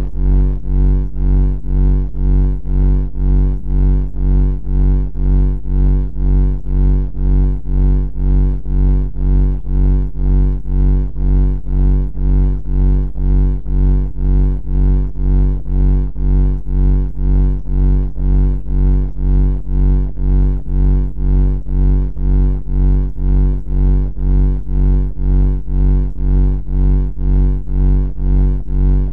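Loud, distorted low buzzing tone, pulsing steadily about one and a half times a second.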